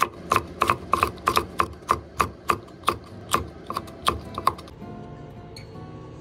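Kitchen knife slicing green chili peppers on a wooden cutting board: sharp knocks of the blade on the board, about four a second, stopping about four and a half seconds in.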